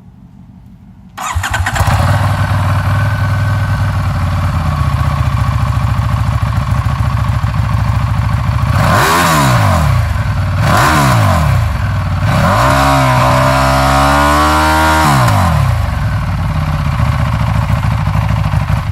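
EBR 1190SX's V-twin engine breathing through EBR finisher exhaust tips, warmed up. It starts about a second in and idles. It is blipped twice, then held at higher revs for about three seconds, and drops back to idle before cutting off at the end.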